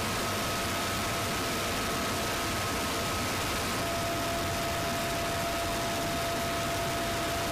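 Helicopter in flight heard from inside its open cabin: a steady rushing roar of rotor, engine and wind noise with a constant high whine over it.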